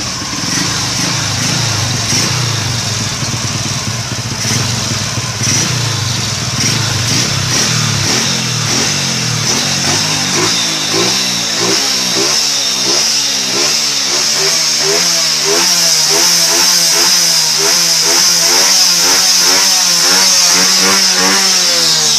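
Small motorcycle engine with a ported carburetor, running steadily at first, then revved in quick repeated throttle blips, about two a second, from roughly the middle on; the revs glide down near the end.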